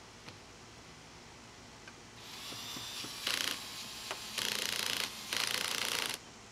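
Cordless drill driving a stubborn screw in short bursts: starting about two seconds in, it runs in three or four pulses of rising whir and cuts off abruptly near the end.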